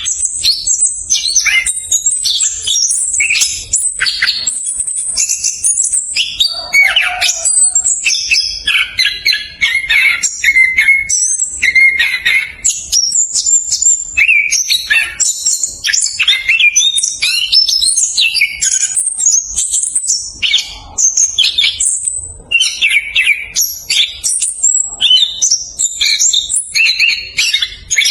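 Orange-headed thrush (anis kembang) singing a fast, dense, rolling song: quick varied high whistles and chirps strung together with hardly a pause.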